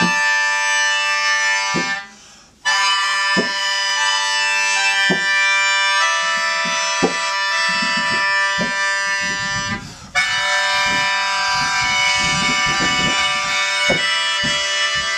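A free-reed mouth organ sustaining a dense, many-noted chord, live, breaking off twice for a breath. Soft low knocks fall under it at a steady pace.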